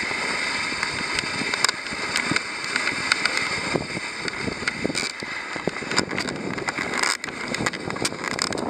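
Dog sled gliding over a groomed snow trail: a steady hiss of the runners on snow, broken by frequent small clicks and knocks from the moving sled.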